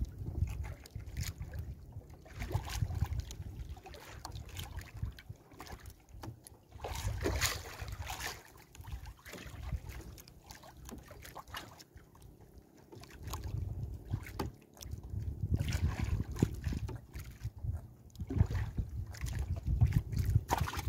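Gusts of low rumble on the microphone, with scattered small clicks and rustles of a fish being worked free of a gill net on a small wooden outrigger boat.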